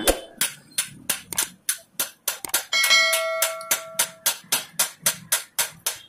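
Hammer striking a steel punch held on a rivet of a washing machine spin motor, quick repeated blows at about three a second, driving the rivet out. One blow about three seconds in leaves a metallic ring that lasts over a second.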